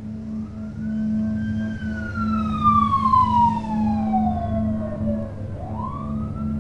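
An emergency vehicle siren wailing: the pitch rises, falls slowly over about four seconds, then climbs again near the end, over a steady low hum.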